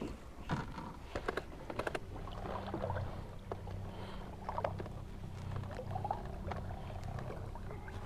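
Small electric trolling motor running with a steady low hum that starts about two seconds in, with scattered clicks and knocks of gear on the small boat.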